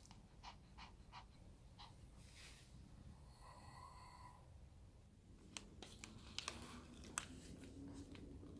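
Faint panting of a small Pomeranian dog, with a few soft clicks.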